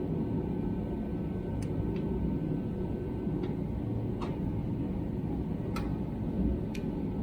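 A steady low rumble with about six short, sharp clicks scattered through it.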